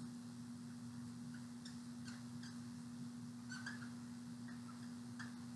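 Dry-erase marker squeaking on a whiteboard during writing: a string of short, faint, high squeaks at irregular intervals, over a steady low electrical hum.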